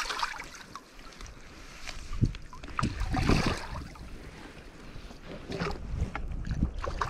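Shallow river water sloshing and splashing as a landing net and hands move in it to release a fish, with a louder splash about three seconds in. Wind rumbles on the microphone underneath.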